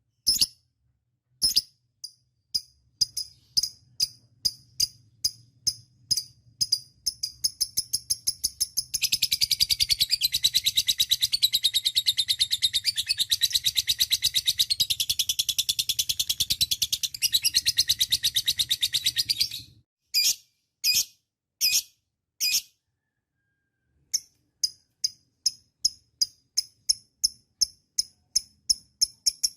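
Lovebird 'ngekek': rapid shrill chirps that speed up into one long, continuous chattering trill of about ten seconds. It then breaks into a few single calls and a short pause before another fast run of chirps begins.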